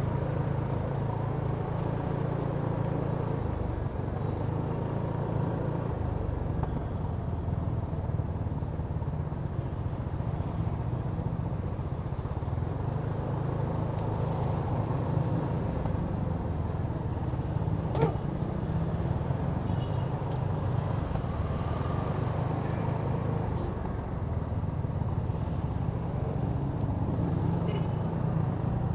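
Kymco Downtown 350i scooter's single-cylinder engine running steadily under way, with road noise. A single sharp click about two-thirds of the way through.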